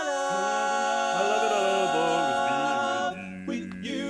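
Male barbershop voices singing a cappella in close harmony: a long held chord with a lower voice moving beneath it, breaking off about three seconds in before the next phrase starts.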